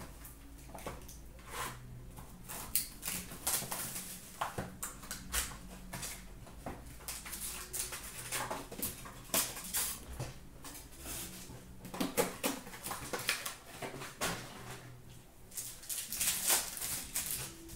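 Upper Deck hockey card box and pack wrappers being handled and torn open: quick, irregular crinkling and rustling throughout, with a faint steady low hum underneath.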